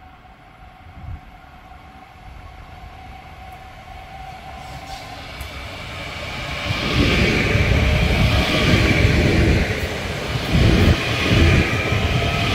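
CRRC Sifang electric passenger train running at speed, approaching and passing close by. A wheel-on-rail rumble and rush grows over about six seconds and stays loud as the cars go by, with a few louder surges as the bogies pass.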